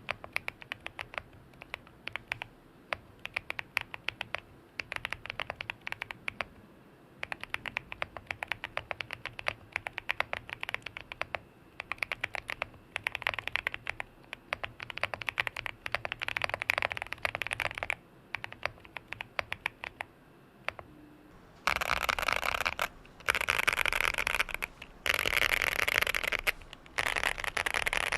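QK65 mechanical keyboard with a POM plate and Boba U4T tactile switches lubed with Krytox 205g0, typed at a steady slow pace of about 69 wpm: a run of separate key clacks with short pauses. About twenty seconds in, it changes to the same board with stock, unlubed Boba U4T switches being mashed rapidly across the home row and modifier keys: louder, dense bursts of clacking with brief gaps between them.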